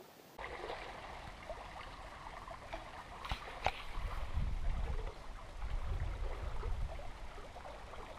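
Water trickling and splashing along the hull of a sailing catamaran moving slowly under sail with no engine running. A low wind rumble on the microphone swells from about halfway, and there are a couple of sharp clicks a little past three seconds in.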